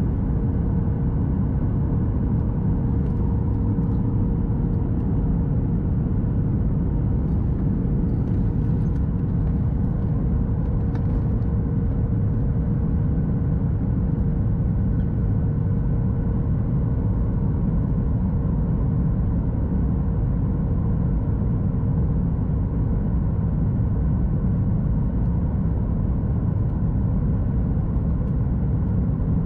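Steady cabin noise inside a Boeing 737 MAX 8: an even low roar of engines and airflow with a steady hum underneath.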